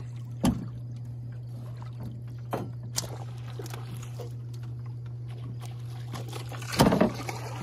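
Steady low motor hum on a jon boat, with bowfishing knocks over it: a sharp knock about half a second in, two light clicks around three seconds, and a louder, longer thump near the end.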